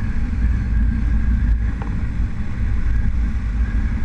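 Motorcycle engine running steadily while riding along the road, with a low rumble of wind buffeting the microphone.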